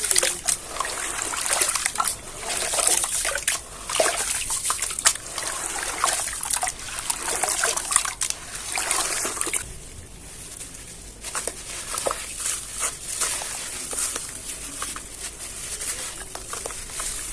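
Chunks of black cement and sand being crumbled and dipped in water: a dense run of wet crackling and crumbling with trickling and splashing, easing off briefly about ten seconds in.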